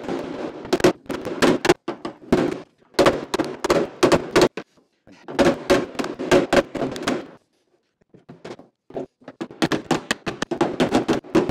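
Hammer blows on the crash-damaged rear body panel of an MGA, knocking out a dent, in quick runs of several blows with short pauses between.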